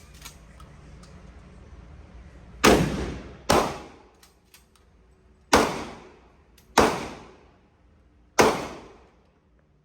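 Five gunshots fired at uneven intervals over about six seconds, each a sharp crack followed by a ringing tail of about a second.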